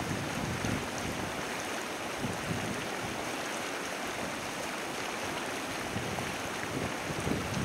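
Acidic hot spring water churning as gas bubbles up through it: a steady rushing, bubbling noise with irregular low swells, some of which may be wind on the microphone.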